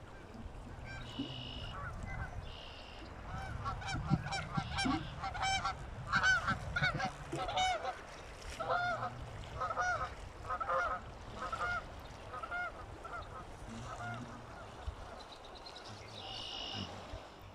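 A long run of short animal calls repeated in quick succession, thickest through the middle and thinning out near the end, over a low steady rumble.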